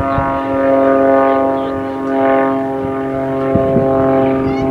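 Propeller aerobatic airplane's engine heard as a steady, droning hum that holds one pitch throughout, with a deeper tone joining in about halfway through.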